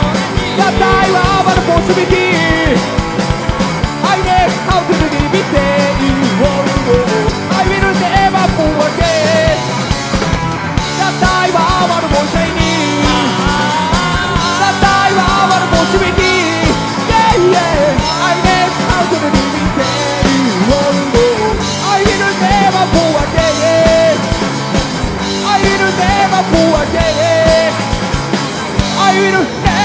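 Rock band playing live: electric guitars and a drum kit, with a male singer over them.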